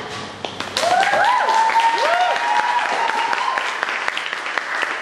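Audience clapping after a spoken-word poem, rising sharply about a second in, with a few rising whoops from the crowd over the clapping for a couple of seconds.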